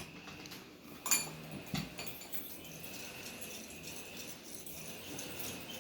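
A couple of light knocks and clinks of kitchenware being handled, one about a second in and another shortly after, over a quiet background.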